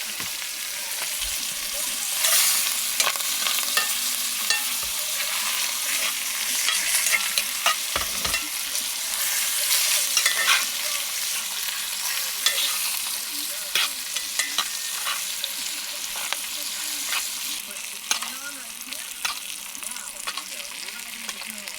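Butter sizzling in a hot cast iron pan as meat is basted with it, with frequent short clicks and scrapes of the utensil against the pan.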